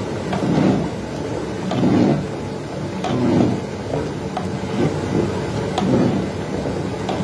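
Large pot of rice boiling over a burner: a steady low rumble that swells about every second and a half, with a few light clicks.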